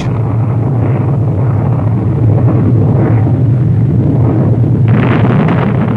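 Rocket engine running: a steady deep rumble, with a harsher hiss joining about five seconds in, as the rocket tips over sideways in a failed launch.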